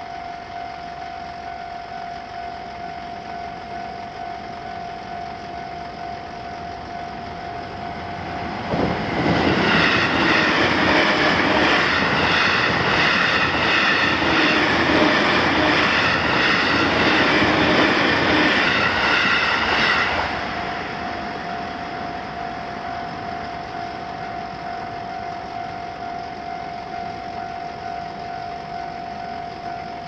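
Japanese level-crossing warning bell ringing steadily. About nine seconds in, a JR Utsunomiya Line electric commuter train runs loudly past over the crossing and drowns out the bell for about eleven seconds, after which the bell carries on alone.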